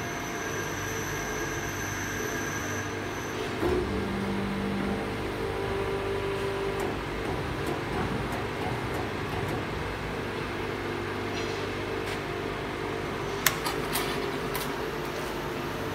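Schnell Hone cylinder honing machine running a cycle on a single-cylinder two-wheeler bore: a steady mechanical hum with a few held tones, and a couple of sharp clicks near the end.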